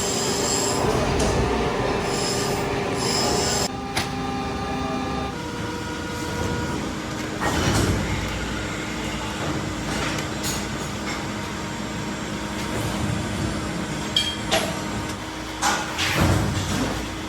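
Factory machinery running with a steady mechanical hum and several sharp clanks, the sound shifting a few times as if between different machines.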